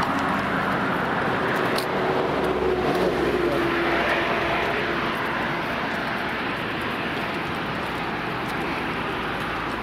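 Road traffic passing on a bridge: a steady rush of tyre and engine noise, with one vehicle's hum swelling and fading a few seconds in.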